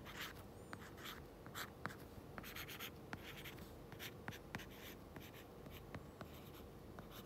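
Stylus writing on a tablet's glass screen: faint short scratches and light taps of the pen tip as words are handwritten.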